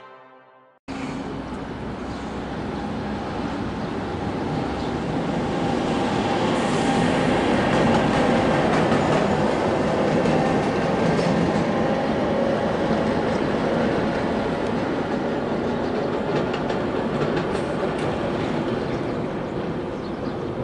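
Freight train hauled by a Korail 8500-class electric locomotive passing on the line: a steady rumble of wheels on rail with scattered clicks. It starts about a second in, is loudest around eight seconds, then slowly eases.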